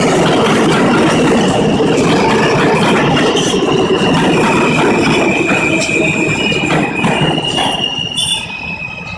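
New York City subway train running past on the far track, wheels rumbling and clattering on the rails, with a steady high wheel squeal from about halfway in. The noise falls away near the end as the last car goes by.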